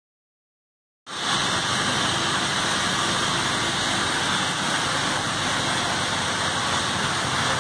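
Industrial boiler running: a steady, loud rushing noise with a low rumble underneath, starting suddenly about a second in.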